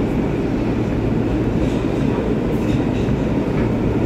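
R143 subway car running on the L line, heard from inside the car: a steady, loud running noise of wheels on rails.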